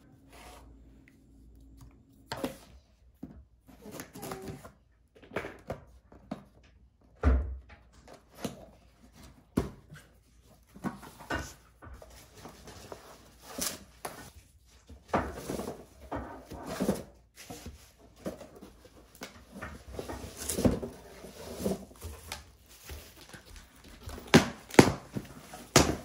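Handling noises of unpacking: plastic wrap and packaging rustling and items knocking as they are set down, an irregular string of clacks and rustles with a heavier thump about seven seconds in.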